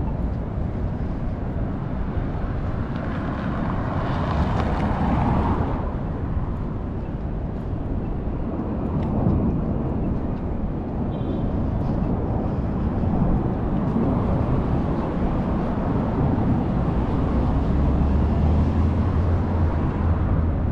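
Street traffic on a busy multi-lane boulevard: a steady rushing of passing vehicles, swelling louder for a few seconds early on, with a low engine drone coming up near the end.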